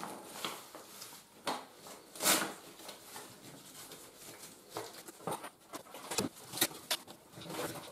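Fabric rustling and light metallic clicks as a metal cot pole is slid through the sewn sleeve of a camping cot's fabric bed, with one louder swish of cloth about two seconds in.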